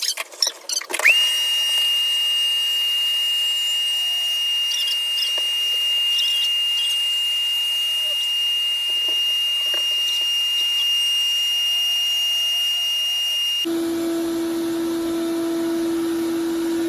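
A power tool cutting out a plaster ceiling. It spins up about a second in to a loud steady high-pitched whine. Near the end the sound changes abruptly to a lower steady hum.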